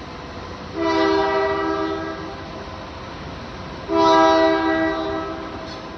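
Locomotive air horn sounding two long blasts, each a steady chord of several tones about a second and a half long, the second starting about three seconds after the first. Two long blasts is the signal that the train is releasing its brakes and about to move off.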